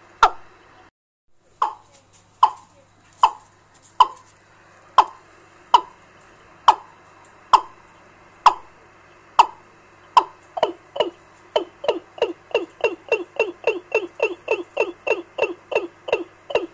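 Recorded bird-trapping lure call, sold as a fowl ('gà') call, played through a small amplifier and loudspeaker: short clucking notes, each dropping in pitch, repeated about once a second, then speeding up to about three a second from about ten seconds in. The sound cuts out briefly about a second in.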